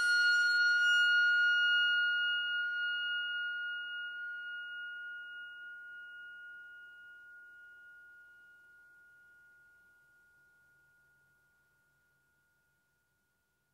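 A single high ringing tone with overtones from a film's sound design, loudest at the start and fading slowly until it dies out about twelve seconds in.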